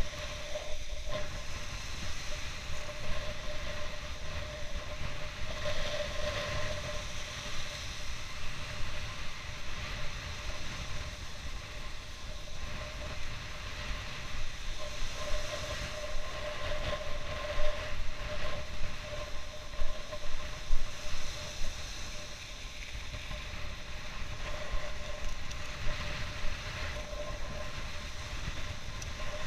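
Strong wind buffeting an action camera's microphone: a constant rumbling rush that swells in gusts, with a faint steady hum underneath.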